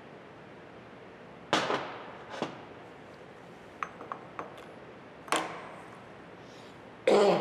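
Steel transmission parts being set onto a mainshaft by hand: a few sharp metal clanks with brief ringing, about one and a half, two and a half, five and seven seconds in, the last the loudest, with light metallic clicks around four seconds.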